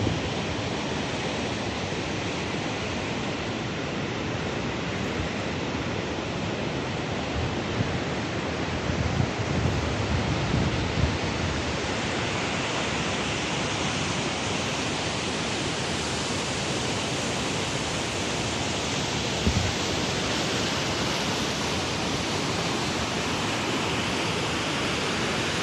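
Wind blowing steadily across open hills, a continuous rushing, with a few low buffets on the microphone about a third of the way in and again later.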